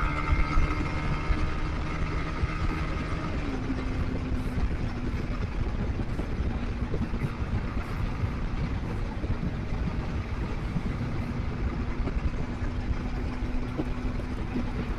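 Motorcycle engine running steadily while riding, over wind and road noise. Its note drops slightly about three and a half seconds in.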